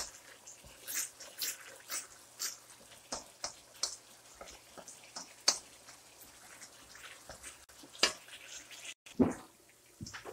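Wooden spoon scraping and knocking against a non-stick pan as thick coconut cream boils down into latik, with irregular pops and ticks a few times a second. The sound cuts out briefly about nine seconds in.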